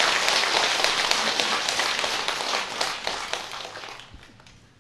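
An audience applauding, with dense clapping that dies away about a second before the end.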